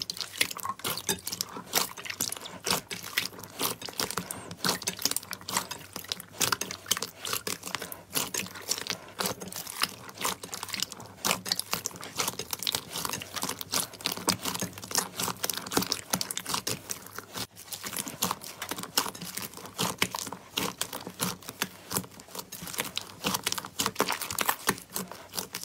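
Clear, jelly-like slime squelching wetly as hands squeeze and knead it in a bowl, with a dense, constant crackle of small pops as air pockets in it burst.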